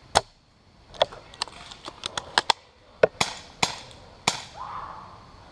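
Airsoft guns firing: about a dozen sharp, uneven pops, the loudest one right at the start and another about three seconds in, some in quick succession.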